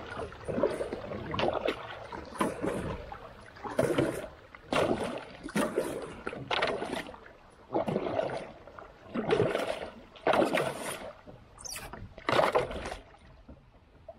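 Repeated splashing strokes in creek water, roughly one a second and somewhat uneven, with no engine or voice.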